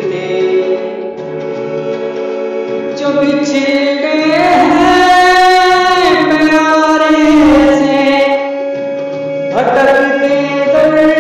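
Devotional song: a voice sings long held notes over instrumental backing, louder through the middle.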